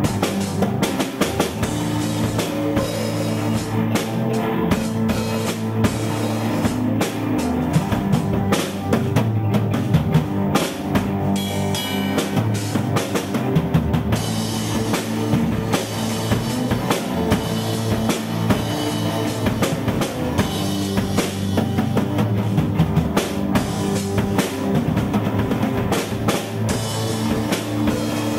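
A rock band playing: a drum kit struck steadily with kick drum, snare and cymbals, over held low notes from amplified string instruments.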